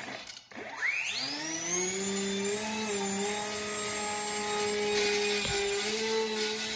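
Micro RC plane's electric motor and propeller spinning up with a quickly rising whine about a second in, then running at a steady pitch that shifts slightly with the throttle.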